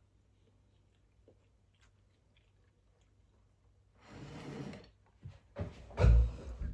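Close-miked eating and mouth sounds: faint small clicks for about four seconds, then two breathy rushes of noise about four and six seconds in, the second louder.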